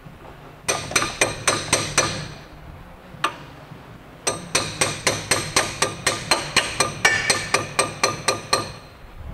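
Hammer tapping on steel to seat a new CV axle shaft in a Saab 9-5, each blow ringing. A quick run of taps, one lone tap, then a longer run at about five taps a second.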